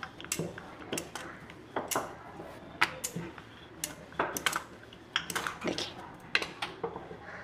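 Wooden rolling pin rolling out samosa dough on a work surface: irregular light clicks and knocks, about one or two a second, as the pin works back and forth.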